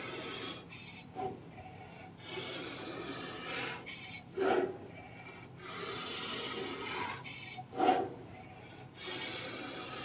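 CNC oscillating knife cutter grooving 9mm polyester fibre acoustic board: a scratchy cutting noise comes in stretches of about a second and a half, repeating every few seconds. Two short, loud bursts, one about halfway through and one near the end, are the loudest sounds.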